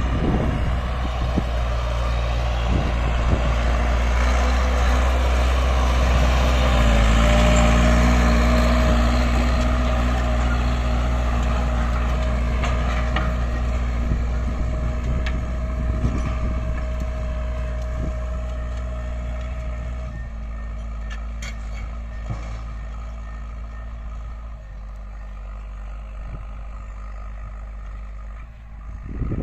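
Farm tractor's diesel engine running steadily under load while pulling a tillage harrow across a field. It grows fainter over the last third as the tractor moves away.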